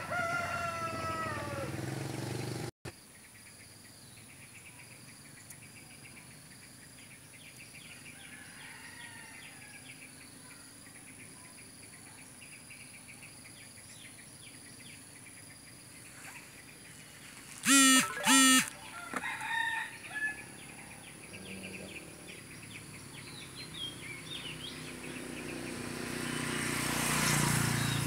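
Free-ranging village chickens calling: a rooster's crow trails off with a falling note at the start, and about 18 seconds in come two loud, short calls followed by a few weaker ones. Faint insects tick steadily in the background, and a rising rushing noise builds near the end.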